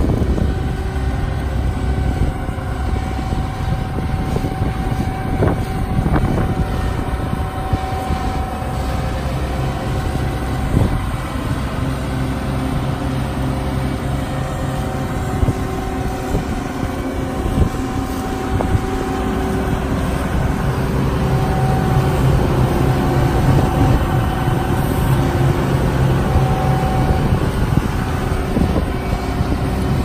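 John Deere T550 Hillmaster combine harvester running steadily while standing still, a constant engine and machinery hum.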